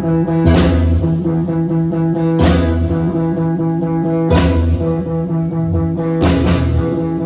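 Music: held chords with a loud crash-like hit about every two seconds.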